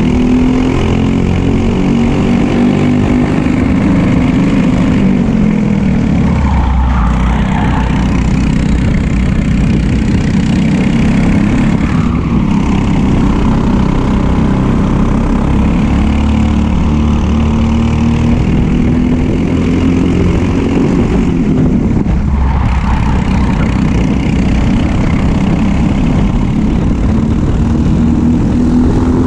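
Briggs & Stratton LO206 four-stroke single-cylinder kart engine at race pace, heard onboard. Its note climbs under full throttle and drops sharply twice, about a quarter and three-quarters of the way through, as the throttle lifts, then climbs again.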